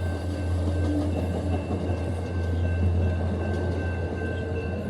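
Train passing close by: a steady low rumble with faint scattered clicks from the wheels on the rails.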